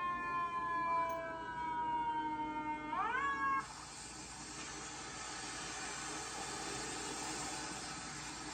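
An emergency-vehicle siren wailing, its pitch falling slowly and then sweeping back up, until it cuts off abruptly about three and a half seconds in. A steady hiss follows.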